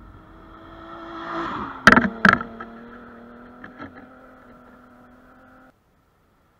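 Rally car at speed on a gravel special stage, its engine growing louder as it approaches, with two loud sharp bangs as it passes, then the engine note dropping slightly and fading away. The sound cuts off suddenly about a second before the end.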